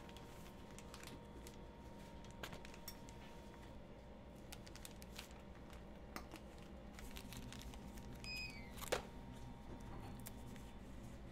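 Plastic piping bags crinkling and rustling as meringue is loaded into them and the bags are twisted, with scattered light clicks and taps; the sharpest click comes about nine seconds in.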